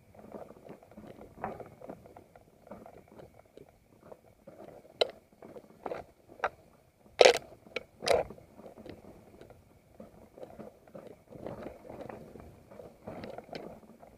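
Mountain bike rolling over a rocky dirt trail: tyres crunching on loose stones and the bike rattling, with sharp clacks from hitting rocks, the two loudest a little past the middle.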